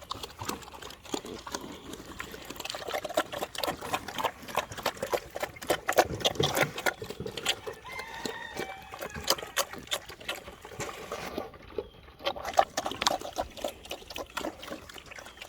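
Pigs eating wet slop: a dense, irregular run of chomping and slurping smacks.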